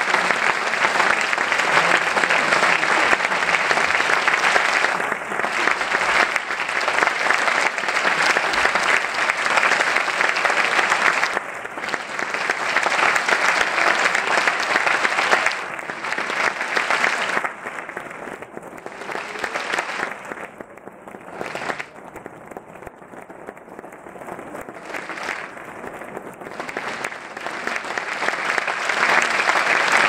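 Audience applauding. The clapping is full for the first half, thins out about two-thirds of the way through, then swells again near the end.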